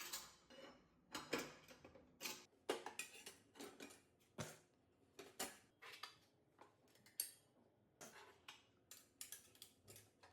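Light metallic clinks and clicks at irregular intervals, one or two a second, as a dado stack's blades, chippers and shims are handled and fitted onto a table saw arbor.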